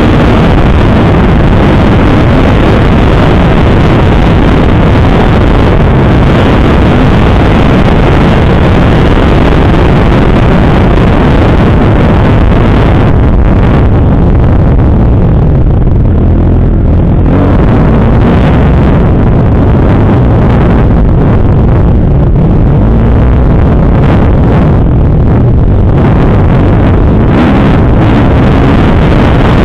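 Kawasaki KX250F's four-stroke single-cylinder engine revving up and down under riding on a dirt track, very loud, with wind rushing over the microphone.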